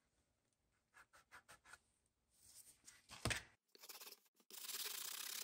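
A diecast metal toy trailer being handled, with light taps and a sharper knock a little over three seconds in. From about four and a half seconds in, a brush starts scrubbing steadily over its wet, stripper-softened paint.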